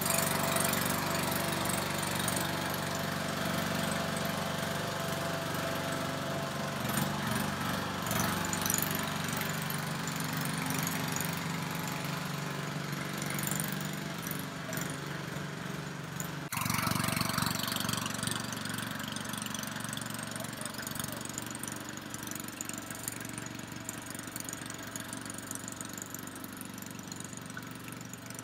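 Small petrol engine of a Scorpion Mk.3 paintball mini tank running steadily as the tank drives across grass, growing fainter as it moves away.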